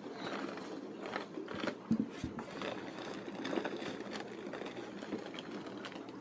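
Rustling and crinkling of packing material in a fish shipping box as the next bag of fish is pulled out, with many small crackles and a couple of low knocks about two seconds in.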